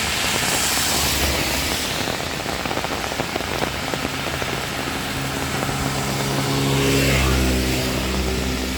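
Heavy rain falling steadily, with a motor vehicle's engine coming in about five seconds in and getting louder, peaking around seven seconds.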